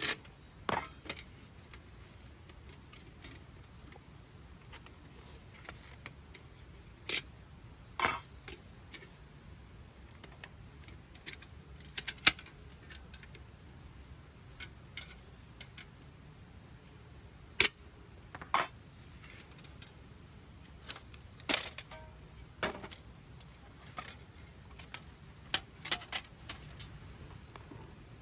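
Scattered sharp clicks and knocks, a dozen or so at uneven intervals, some ringing briefly, over a faint steady low background.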